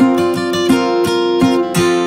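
Background music: a guitar strummed in a steady rhythm, about three strums a second, over held chords.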